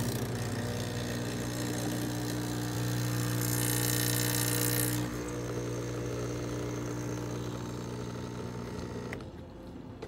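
Manual espresso machine's pump humming steadily as it runs a shot, with a louder hiss for a second or so midway; the hum drops away about nine seconds in.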